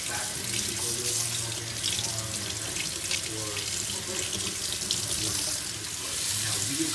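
Kitchen faucet running steadily, its stream splashing over beets being rinsed by hand and into a stainless steel sink.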